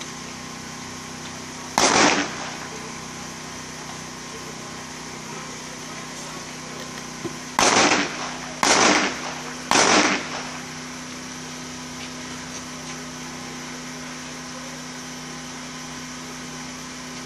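Pistol shots from elsewhere on the range: a single shot, then about six seconds later three more about a second apart, each with a short echoing tail.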